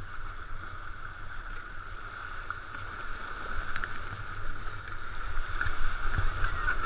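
Sea water sloshing around kayak hulls and waves washing and splashing against shoreline rocks, with a steady low rumble underneath. The wash grows louder over the last few seconds.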